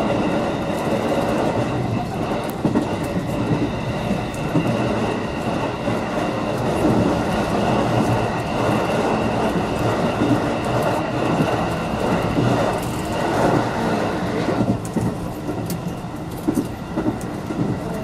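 Electric commuter train running on the line, heard from inside the leading car: steady wheel-and-rail running noise with a faint high whine that cuts off about fifteen seconds in.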